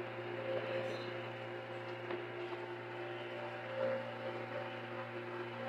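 A steady electrical hum with a few faint tones above it, and a few light clicks.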